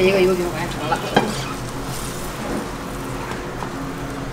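Scallion oil pancake sizzling in the hot oiled pan of a pancake griddle while it is worked loose and lifted with a wooden spatula and chopsticks. A sharp knock of wood on the pan comes about a second in.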